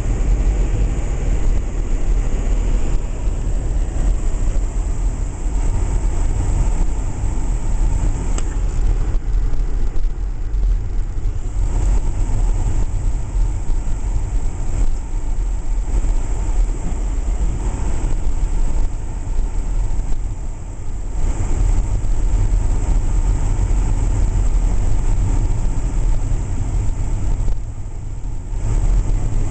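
Inside a moving car: a steady low rumble of engine and tyres on a snow-covered road, easing off briefly twice, about two-thirds through and near the end.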